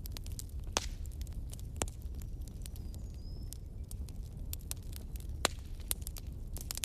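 Wood fire in a fireplace crackling, with irregular sharp pops over a steady low rumble of the flames; three louder pops stand out, about one, two and five and a half seconds in.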